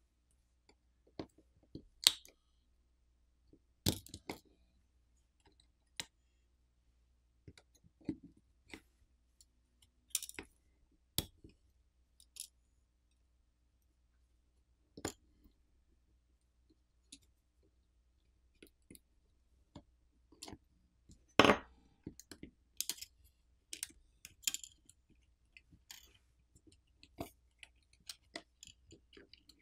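Scattered small clicks and taps of a metal pry tool on a smartphone's internal parts, with the clicks of connectors being pried loose as the main board is freed. The loudest click comes about two-thirds of the way through.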